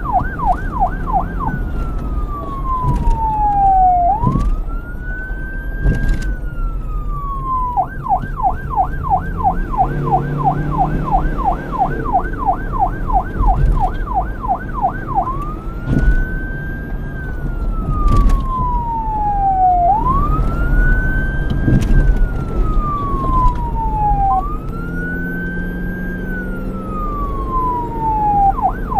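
Police siren switching between its two modes. One is a fast yelp, warbling up and down about three times a second. The other is a slow wail that rises quickly and falls over two to three seconds. It goes from yelp to wail about a second in, back to yelp around eight seconds, to wail again around fifteen seconds, and to yelp near the end, over a low rumble.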